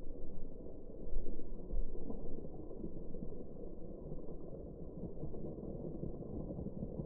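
Rain falling on brick paving, heard slowed down with the slow-motion footage: a deep, muffled rumble of noise with no high end, swelling louder about a second in.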